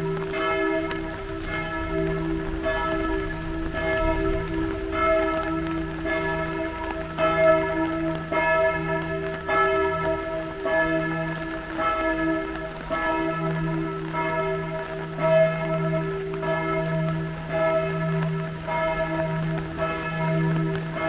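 Church bells ringing, several bells struck in a steady, overlapping round of strokes, about one and a half strokes a second.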